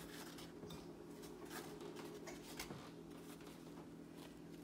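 Faint scratchy rustling of granulated sugar as a fried doughnut is rolled and pressed in a bowl of it, in short uneven scrapes, over a low steady hum.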